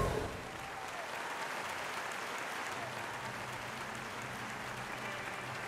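Audience applause, a steady, unbroken clapping of many hands that starts as the talk cuts off.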